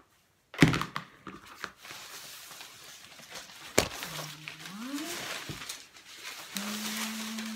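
Paper strips cut from dictionary pages rustling and crackling as the fabric skirt they are glued to is handled and folded on a cutting mat, with a sharp knock about half a second in. A short rising tone comes around the middle, and a steady low tone near the end.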